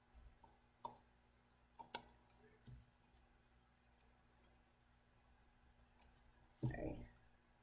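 Faint, scattered clicks and light taps from hands handling a plastic mixing cup, a wooden stir stick and a clear sticker on a work table, with one louder brief handling noise near the end.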